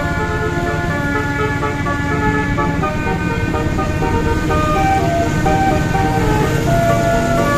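Indonesian bus 'telolet basuri' musical horn playing a tune, with one steady note after another and several notes sounding together. Underneath is a constant low engine and road rumble.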